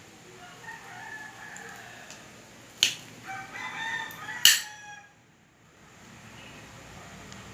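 A rooster crowing, with two sharp clicks about three and four and a half seconds in.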